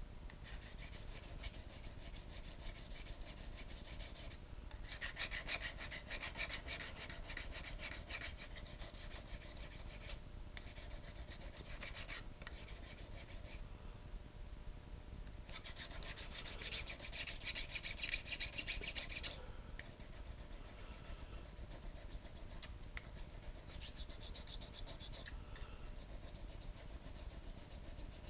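Steel on the milling machine being cut or scraped: a rasping, rubbing metal sound in several bursts of a few seconds with short pauses, the loudest burst a little past the middle and weaker through the last third.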